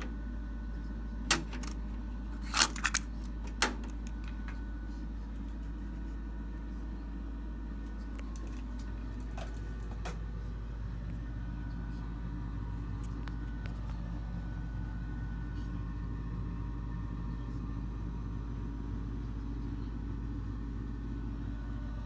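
Cassette deck keys clicking sharply several times in the first four seconds, then a steady low hum.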